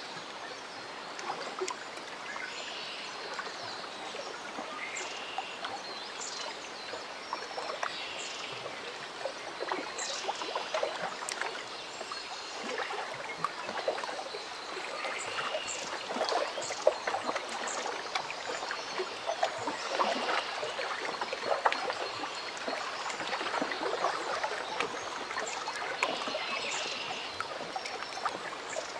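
Lake water lapping at the shore in small, irregular splashes, with short high chirps recurring every few seconds.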